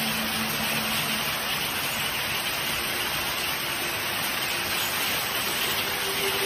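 Heavy hail and rain pelting down on a street and pavement: a dense, steady hiss with no single impacts standing out.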